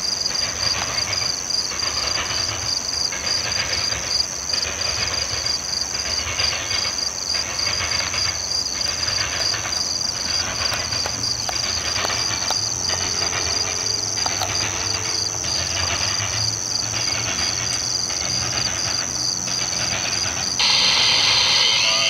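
Hopper train's wheels hammering over the railroad diamonds in a steady, even rhythm, over a low rumble. A steady high-pitched drone runs above it, and the sound gets louder near the end.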